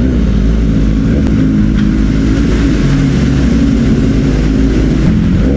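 Sport motorcycle engines running at low, fairly steady revs as the bikes roll slowly along.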